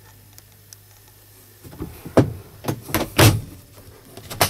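Plastic overhead storage compartment lid in a Scania S truck cab being handled: a run of clicks and knocks from the lid and its latch, starting about a second and a half in. A faint steady hum comes before them.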